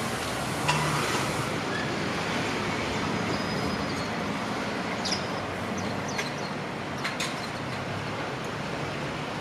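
Steady noise of street traffic mixed with a passing electric commuter train moving away, with a few faint clicks near the middle.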